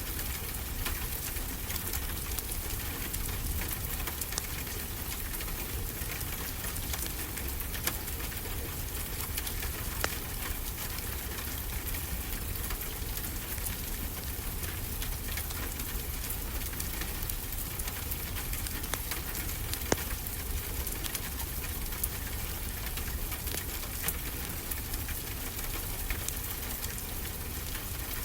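Steady rain falling, with a wood fire crackling in a fireplace: scattered sharp pops over the even hiss of the rain, a few of them louder.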